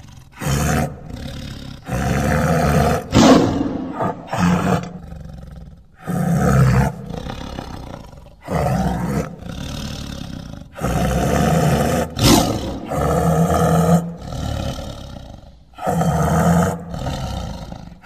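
Tiger roaring repeatedly: about ten deep roars, each a second or so long, one every second or two, with lower growling rumbles between them.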